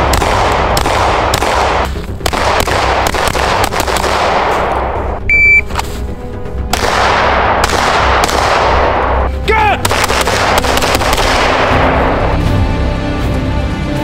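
Handgun fired rapidly, shot after shot, each crack with an echoing tail, over background music. A short electronic beep sounds about five seconds in, and near the end the shooting gives way to the music.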